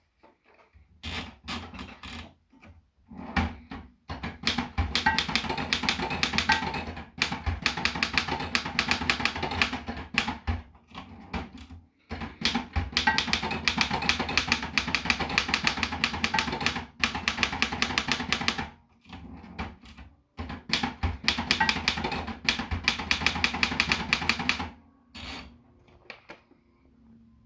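Erika Model 10 manual portable typewriter being typed on: fast runs of key strikes in several long bursts, broken by short pauses, with a few scattered quieter clicks near the end.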